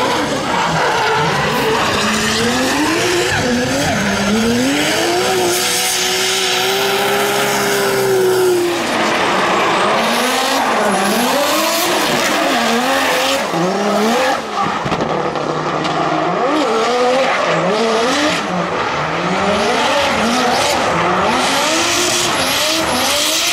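BMW E46 drift cars revving hard while sliding, the engine pitch swinging rapidly up and down as the throttle is worked, over the constant hiss and screech of spinning tyres. Partway through, one long rising rev is held high before dropping away.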